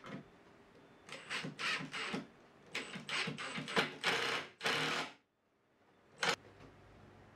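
Makita cordless impact driver driving screws into wood in several short bursts, with a short final burst about a second later.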